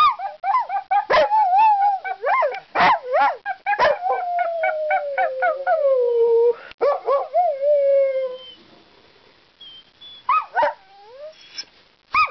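A dog 'singing': a run of wavering, yodelling howls that rise and fall in pitch, with two long howls sliding down in pitch about four and seven seconds in, then a few short whines near the end.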